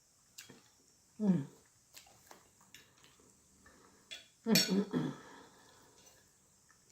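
Two loud burps: a short one about a second in, falling in pitch, and a longer one in two parts around four and a half seconds in. Light clinks of cutlery on a dish come between them.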